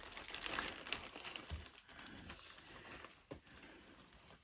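Moss being broken up by hand and pressed into a tarantula enclosure: faint crinkling rustles with scattered small clicks, busier in the first couple of seconds.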